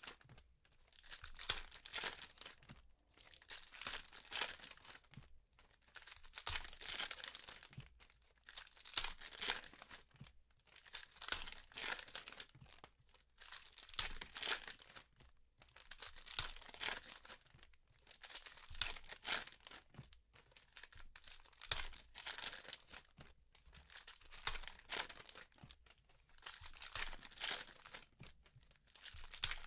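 Foil trading-card packs being torn open and their wrappers crinkled by gloved hands, in repeated bursts about every couple of seconds.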